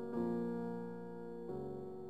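Slow background piano music of held chords, with a new chord struck just after the start and another about one and a half seconds in.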